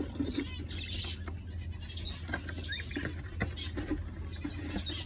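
Small cage birds in an aviary chirping in short, scattered calls, over light rustling and clicking and a steady low hum.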